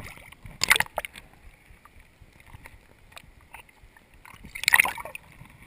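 Water splashing around a GoPro camera housing as it is plunged under a river's surface during the release of a smallmouth bass. There is a loud splash about a second in, faint muffled ticks and knocks while the camera is underwater, and another loud splash near the end.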